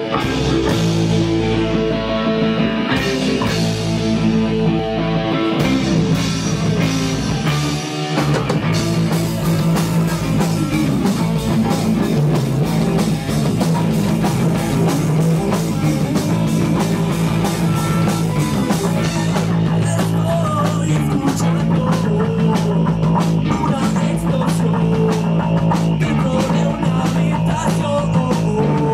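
Rock music with guitar and a drum kit. The drumming gets fuller and more driving about eight seconds in.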